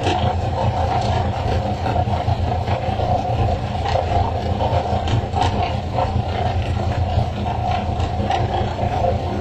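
Fishing boat's engine running with a steady drone, with irregular knocks and slaps scattered through it as skipjack tuna are flicked off the poles and land on the wooden deck.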